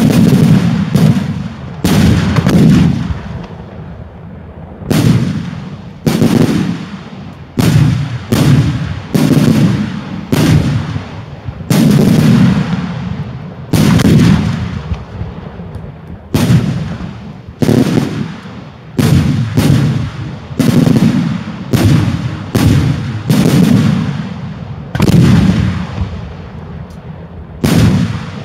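Daylight fireworks display: shells going off in a rapid run of loud bangs, roughly one to two a second, each trailing off in a low rolling rumble, with a brief lull about three seconds in.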